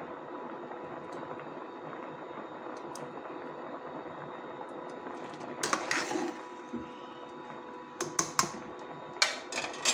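A pot of boiled dal and lobia beans simmering, with a steady bubbling. A steel ladle clinks and clatters against the aluminium pot in several short bursts in the second half.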